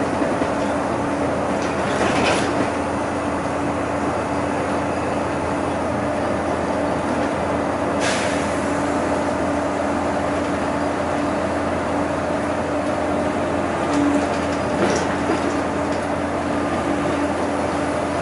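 Inside a city bus cruising at highway speed: steady engine and road noise with a constant low drone, broken by a few short clicks from the cabin.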